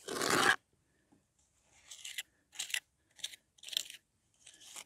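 Small steel trowel scraping and pressing lime mortar into a brick infill panel: one longer scrape at the start, then five short separate scrapes.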